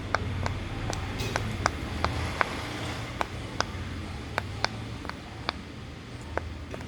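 Silicone pop-it fidget toy having its bubbles pressed one after another: a string of short sharp pops, about two to three a second, over a low steady hum.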